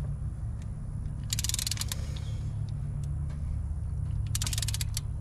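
A hand ratchet clicking in two short bursts of rapid, even clicks, one about a second in and one near the end, over a steady low hum.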